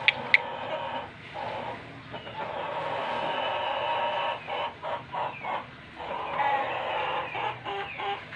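Pelung rooster crowing: one long, drawn-out crow of about three and a half seconds, followed by shorter broken calls and a falling tail. Two sharp clicks come right at the start.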